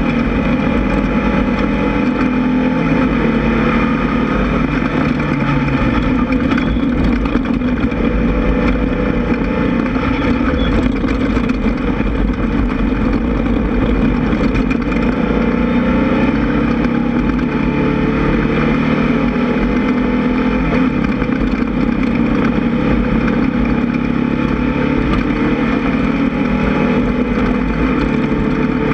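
Air-cooled 1600 cc VW flat-four engine of a Class 1600 off-road race buggy running hard under load, its pitch rising and falling a little as the revs change.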